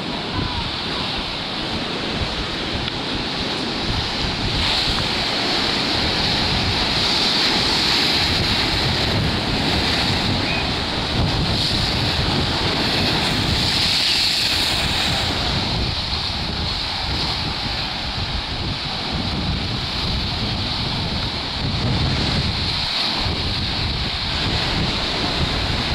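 Rough sea surf: waves breaking and washing up the shore in a steady wash of noise that swells now and then. Wind gusts on the microphone.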